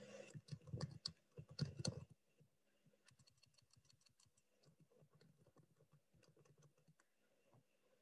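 Computer keyboard typing: a louder run of key clicks in the first two seconds, then faint, rapid tapping that stops near the end.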